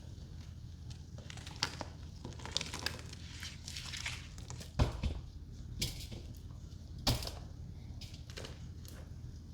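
Soap-soaked sponges squished and handled in a thick foamy paste of cleaning products, giving irregular wet crackles and squelches. There are two louder knocks, about five and seven seconds in.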